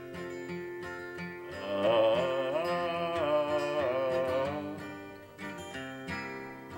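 Acoustic guitar playing a slow country ballad accompaniment between sung lines. About a second and a half in, a louder melody line with a wavering, gliding pitch comes in over the guitar for about three seconds, then fades.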